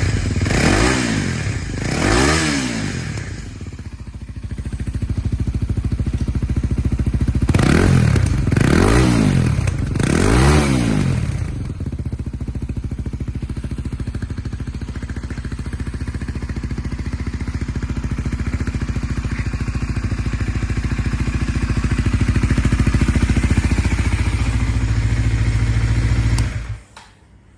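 Kawasaki Ninja 250SL's single-cylinder engine running through a LeoVince carbon slip-on muffler. It gets three quick throttle blips, idles, gets three more blips about eight seconds in, then idles steadily until it is switched off about a second before the end.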